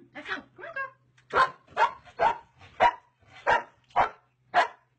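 A dog barking repeatedly, sharp single barks about two a second, after a few softer ones in the first second.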